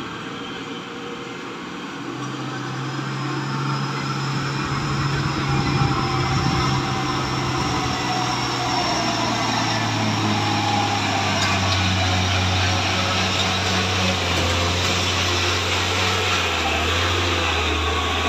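Mitsubishi Fuso truck's diesel engine labouring up a steep grade, growing louder as it approaches; its low note steps down twice as the engine slows under the load.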